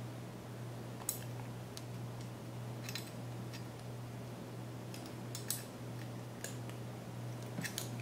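Light metallic clicks and taps, scattered irregularly, as a screwdriver turns metal mounting posts into a CPU water block's metal mounting bracket, over a steady low hum.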